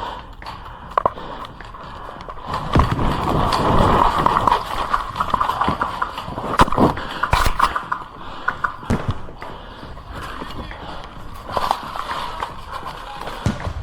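Footsteps and rattling kit of a player moving at a run, with irregular sharp knocks and clicks and a louder stretch of rumbling and knocking a few seconds in.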